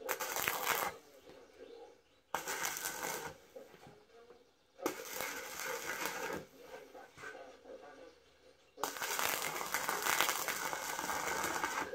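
Electric arc welding crackling in four short runs, each starting and stopping abruptly as the arc is struck and broken; the last run, near the end, is the longest.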